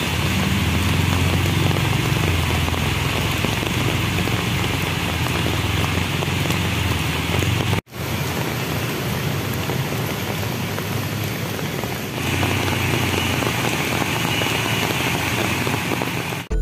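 Heavy rain pouring onto a flooded street, a steady hiss, with the low rumble and splash of motorcycles and cars driving through the floodwater. The sound cuts off briefly and changes twice, about 8 and 12 seconds in.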